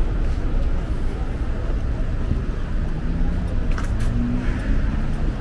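Street traffic: a steady low rumble of passing cars.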